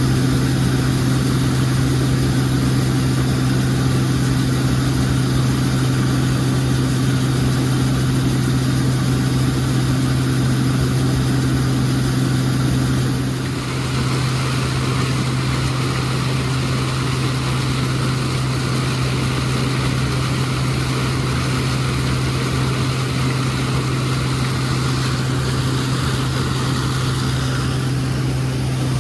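Combine harvester running steadily at work in corn, a constant low engine hum with machinery noise over it. About halfway through the sound dips briefly and then carries on with a little more rushing noise.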